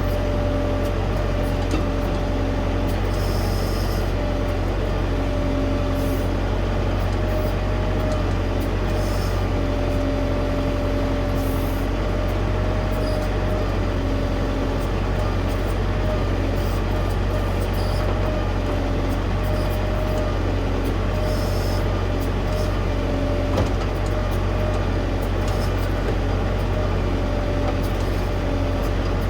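Diesel tractor engine running steadily while working a backhoe's hydraulics, with a steady whine over the engine and a lower tone that comes and goes. Short high-pitched noises break in now and then.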